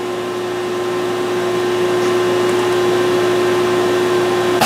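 Steady hum and whir of a powered-up CNC vertical milling machine: an even rush with one steady tone over a lower hum, growing slightly louder.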